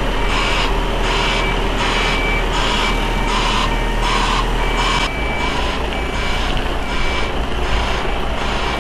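Reversing alarm beeping at about one and a half beeps a second over the steady diesel rumble of a Mercedes-Benz heavy-haulage tractor unit moving slowly with a low-loader.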